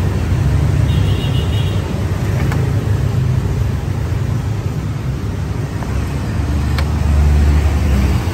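Street traffic of motorbikes running past in a steady low rumble, growing louder near the end as one passes close, with a brief high tone about a second in.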